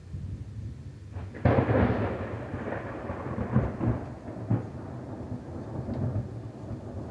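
Thunder: a sudden loud clap about a second and a half in, then a rolling rumble with several louder peaks that slowly fades.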